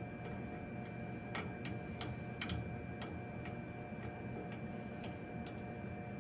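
Light ticks and clicks of a small threaded elbow fitting being turned by hand onto a CO2 laser's nozzle assembly, irregular at first and then about two a second, the loudest about halfway, over a steady hum with faint constant tones.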